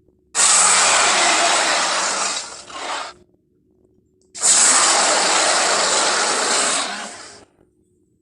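Two long, harsh, noisy monster-roar sound effects made for the Rhedosaurus, each about three seconds long, with a pause of about a second between them.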